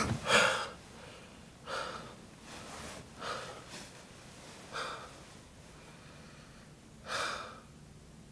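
A man's sharp, loud gasp as he wakes startled, followed by heavy breathing: about five softer breaths that come further apart as he calms down.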